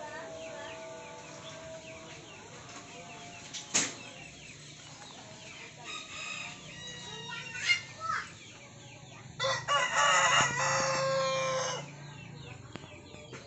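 A rooster crows once, a single call of about two seconds starting a little past the middle, the loudest sound here. Two sharp clicks come earlier.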